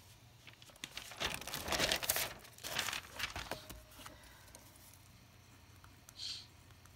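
Lined notebook paper rustling and crinkling as a page is flipped over to a fresh blank sheet, loudest for about two and a half seconds. A short faint scratch near the end as a pen starts writing.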